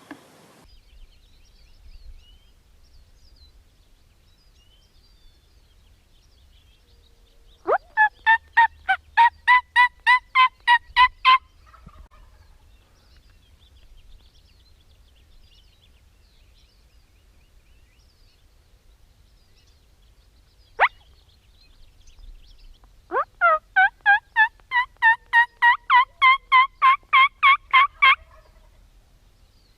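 Turkey yelping: two long runs of evenly spaced, loud yelps, about four a second, the second run a little longer. A single sharp note sounds between them.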